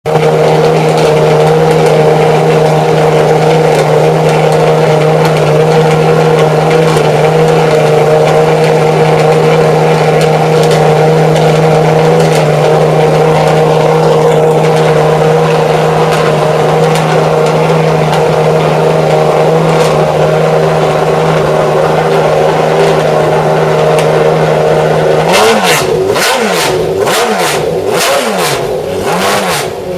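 McLaren F1 GTR Long Tail's BMW V12 engine running at a steady, fast idle, then blipped up and down in revs about four or five times near the end.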